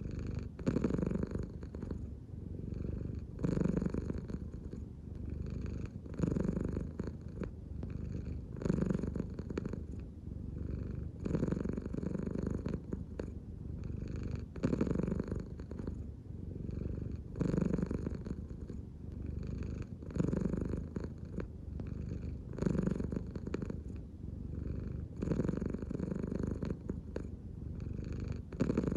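American Shorthair cat purring steadily, the purr swelling and easing with each breath about every two and a half seconds, the sound of a relaxed cat.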